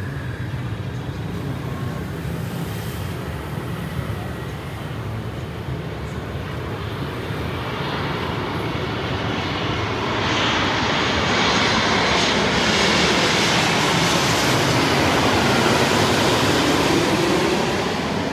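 A Boeing 787-8's GEnx turbofan engines on final approach, growing louder as the airliner comes in low overhead. The sound is loudest in the last third as it passes, then starts to fade.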